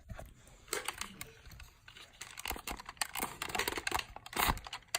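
Rapid plastic clicks and rattling from toy dart blasters being handled and their priming handles tugged back, with some rustling in between.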